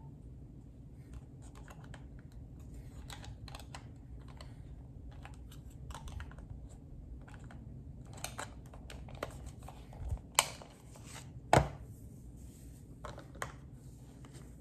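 Irregular small clicks and taps of objects being handled, over a low steady hum, with two louder knocks about a second apart in the last third.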